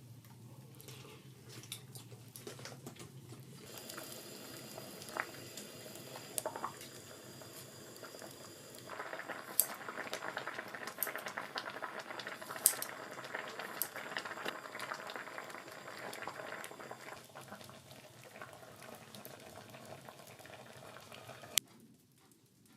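A pot of soup boiling hard, a dense bubbling with small pops, building up and then strongest through the middle before it cuts off suddenly near the end.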